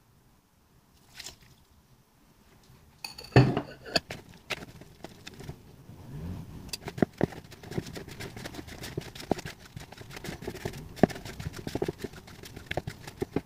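A fork stirring flour and water into pizza dough in a bowl: a loud knock about three seconds in, then quick, irregular clicks and scrapes of the fork against the bowl.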